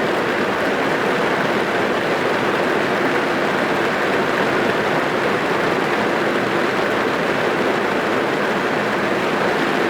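Rain falling on a car's roof and windows, heard from inside the cabin as a steady, dense patter without a break.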